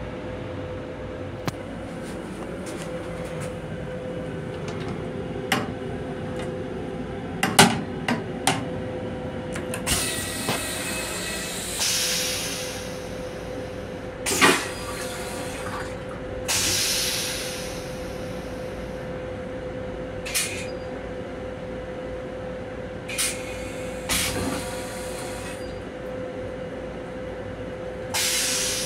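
Long Island Rail Road M7 railcar heard from inside its restroom: a steady hum with scattered clicks and knocks, and a series of short hisses.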